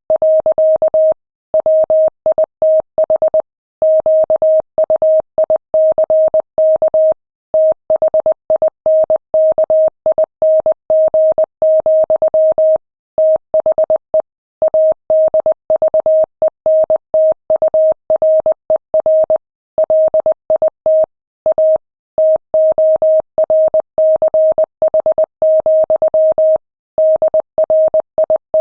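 Morse code sent at 20 words per minute: a single steady beep keyed on and off in dots and dashes, with short silent gaps between words.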